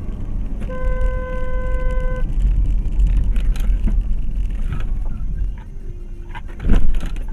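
In-car dash-cam audio of a car driving: a steady low engine and road rumble. About a second in, a steady pitched tone sounds for about a second and a half, and a short loud burst of noise comes near the end.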